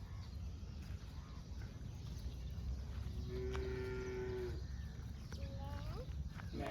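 Cattle mooing: one steady, even-pitched call about a second long, about three seconds in, followed by a few short gliding sounds near the end.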